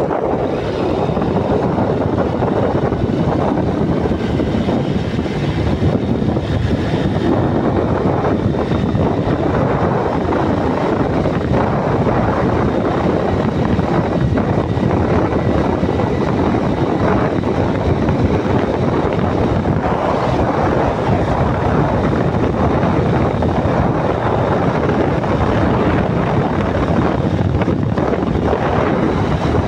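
Motorcycle cruising on an open road: a steady rush of wind on the microphone with the engine droning underneath.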